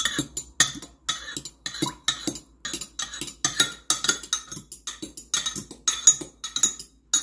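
A metal spoon stirring a liquid egg mixture in a glass Pyrex measuring cup, clinking against the glass in an uneven rhythm of about three clinks a second.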